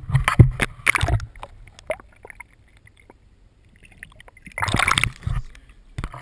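Water splashing and sloshing against a GoPro action camera as it is dunked into a river and brought back up: loud splashy bursts in the first second or so and again near the five-second mark, with a muffled, much quieter stretch in between while the camera is underwater.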